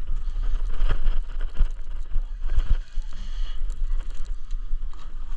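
Steady low rumble of wind and boat noise on a fishing boat's deck, with scattered knocks and clicks of gear.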